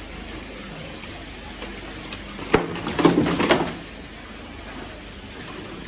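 A sharp knock, then about a second of splashing water and clatter as the catch is handled in water.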